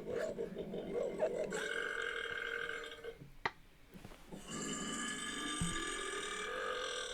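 A person burping in long, drawn-out, pitched belches: one of about a second and a half, then after a short gap a second of nearly three seconds that cuts off abruptly.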